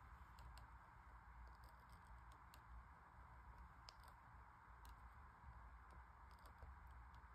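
Kinetic drawing machine working slowly, giving faint, irregular clicks and ticks from its pen and rod linkage as the pen moves over paper, over a low steady hum.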